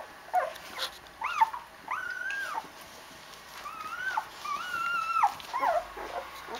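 Eight-day-old Rhodesian Ridgeback puppies whimpering: a string of high, squeaky whines, several short and a few longer held ones.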